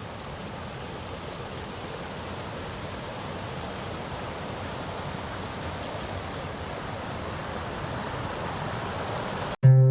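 Steady rushing of water over the small rock-sill waterfalls of the Tanew river, slowly growing louder. Near the end it cuts off abruptly as plucked, harp-like music begins.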